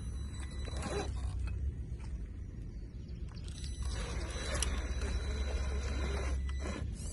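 A 1/10-scale RC crawler pickup driving over forest ground: its electric motor gives a thin steady whine, and its tyres scrape and crunch over the ground more loudly for a couple of seconds past the middle. A low rumble runs underneath.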